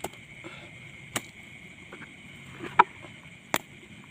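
Four or five sharp knocks or clicks, about a second apart, the loudest a little before three seconds in, over a steady high-pitched chorus of night insects.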